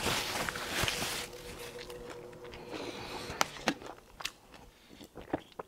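Paper napkin rustling as it is wiped across the mouth, followed by a few sharp clicks and crackles as a plastic water bottle is handled between mouthfuls.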